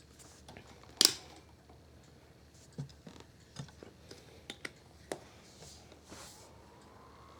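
Scattered clicks and knocks from the plastic parts of a 12-inch table fan being handled, the sharpest about a second in. A faint rising whine starts near the end.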